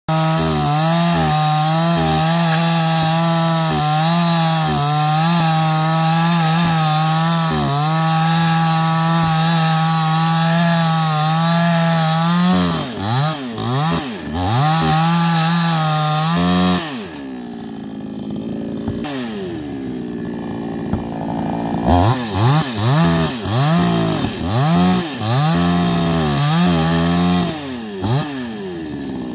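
Petrol chainsaw cutting through a thick tree trunk, held at a steady high engine speed for about the first twelve seconds. It then revs up and down several times, settles to a quieter idle for a few seconds, and is blipped up and down repeatedly near the end.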